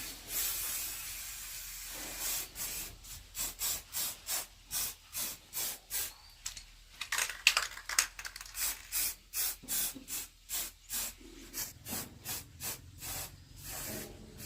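A steady spraying hiss for about two seconds, then rhythmic hand-scrubbing strokes, about two or three a second, rubbing back and forth.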